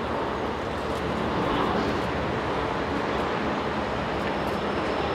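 Airbus A380-841 climbing out at take-off power: its four Rolls-Royce Trent 900 turbofans make a steady, even jet noise.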